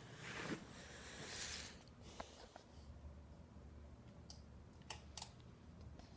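Faint rustling: two brief swishes, then a few scattered, sharp soft clicks.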